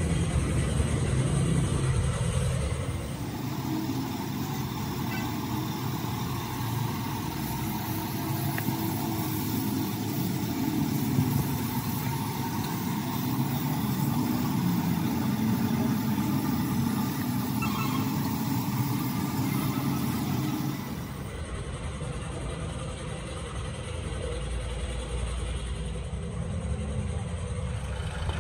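Compressed-air paint spray gun hissing steadily as it sprays paint, with a motor running low underneath. The hiss starts a few seconds in and cuts off about three-quarters of the way through, leaving the motor's rumble.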